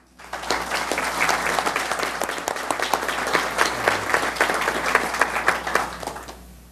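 Audience applause: many hands clapping in a hall. It starts suddenly and dies away near the end.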